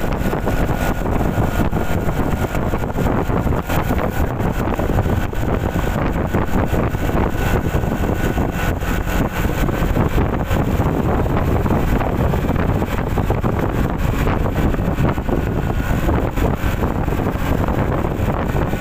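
Steady wind rush over the microphone mixed with the drone of a motor scooter's engine, cruising at about 50 km/h.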